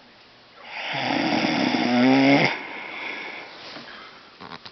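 A person snoring: one loud, rasping snore about two seconds long that starts half a second in and cuts off sharply, followed by a softer breath.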